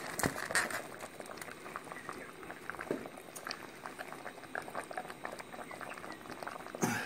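Stew simmering in a cast iron potjie pot: liquid bubbling with many small, irregular pops.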